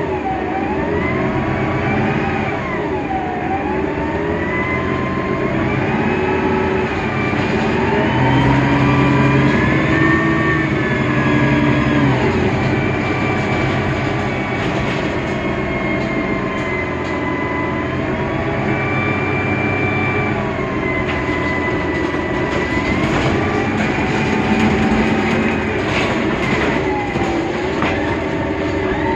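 2001 Mercedes-Benz Citaro O530 Ü bus running, its OM 906 hLA diesel and Voith Diwa 864.3E automatic gearbox giving a steady drone under high whines that rise and fall again and again. This whining is the bus's particular sound, much like that of the suburban Citaros.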